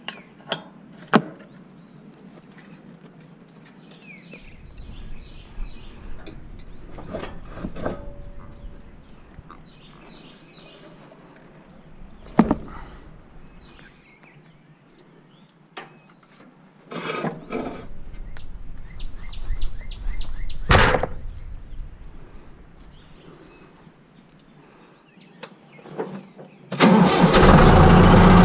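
Scattered clicks and knocks with stretches of low rumbling noise, then near the end a motor vehicle engine starts and runs loudly.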